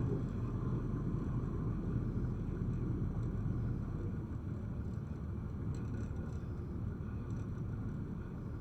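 Ferry's engine running with a steady low drone.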